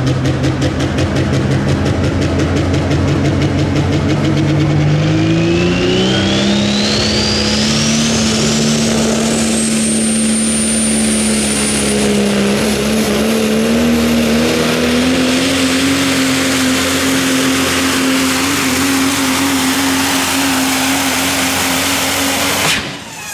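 Super modified four-wheel-drive pulling truck's engine at full throttle on a pull. The engine pitch rises over a few seconds, then holds high and climbs slowly, while a high whine climbs steeply alongside it before levelling off. The sound cuts off abruptly near the end.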